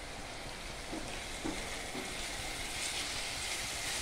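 Chopped onions sizzling as they fry in oil in a stainless steel kadai, stirred with a silicone spatula. The onions are nearly cooked. The sizzle grows a little louder toward the end.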